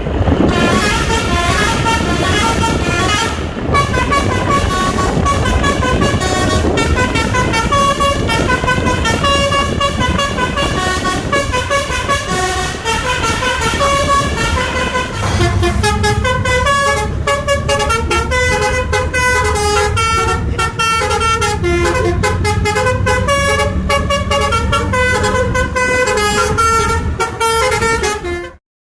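A Basuri telolet multi-tone bus horn plays a fast tune of short notes over the bus's running engine. The engine rumble grows louder about halfway through, and everything cuts off suddenly just before the end.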